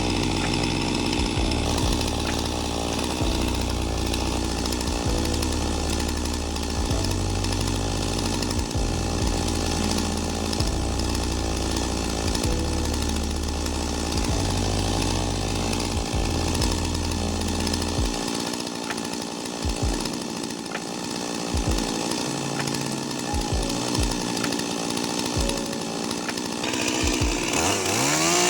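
Chainsaw running steadily as it cuts into a large tree; near the end its pitch climbs as the engine revs up.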